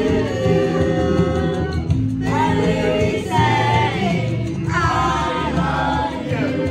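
A song performed by a group of voices singing over a recorded backing track with steady bass notes.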